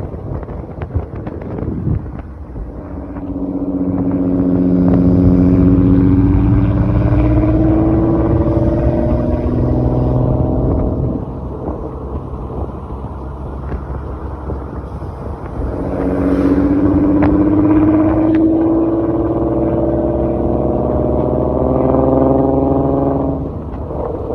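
Golf IV R32's 3.2-litre VR6 engine revving up twice, its pitch rising slowly and steadily for several seconds each time, then dropping back to a lower rumble in between.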